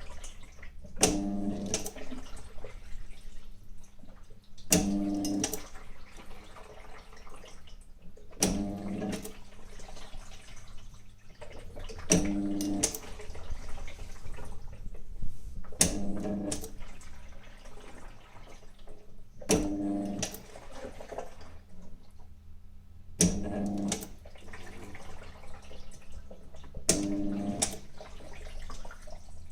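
Belt-driven, non-inverter motor of a Hitachi NW-6AZ washing machine switching on in short pulses about every four seconds, eight times, each start a hum with clunks, then coasting more quietly, as in the agitation stroke of a wash cycle.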